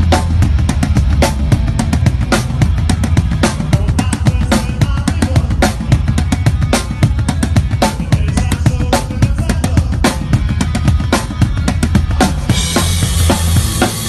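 Rock band playing live, with the drum kit to the fore in a steady beat of bass drum and snare over bass guitar. Cymbals crash in near the end and keep washing.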